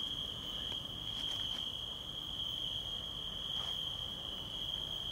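Crickets trilling in a steady, unbroken high-pitched chorus, with a few faint clicks.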